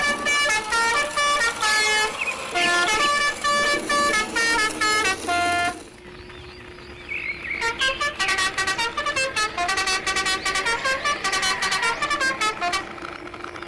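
A jaunty tune of short, horn-like pitched notes. It breaks off about halfway through and starts again a second or two later.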